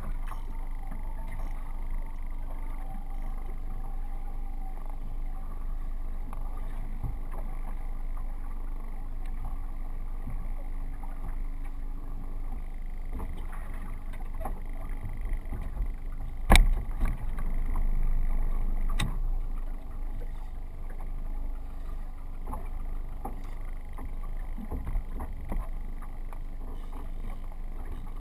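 Wind on the microphone and water against a small boat's hull while it drifts, with a faint low hum that stops about halfway through. Two sharp knocks on the boat about two and a half seconds apart, the first the loudest, as a kingfish is brought aboard.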